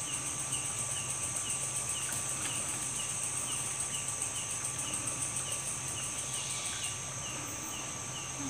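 Night insect chorus: a cricket chirping about twice a second over a steady, high, fast-pulsing buzz of other insects.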